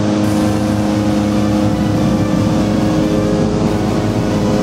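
Petrol-engined hot-air balloon inflation fan running steadily at full speed, a constant engine drone with a steady hum in it, cold-inflating an envelope.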